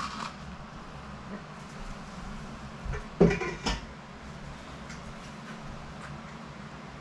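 Shredded cabbage being handled into a stoneware fermentation crock, with two clunks against the crock a little over three seconds in, over a low steady hum.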